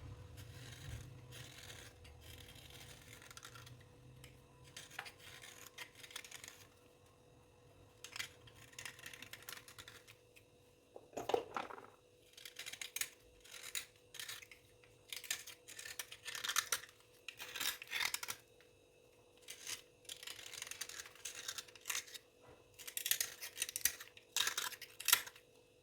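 Close-up scraping: short, dry scratchy strokes in irregular clusters, with a few louder strokes about eleven seconds in and near the end.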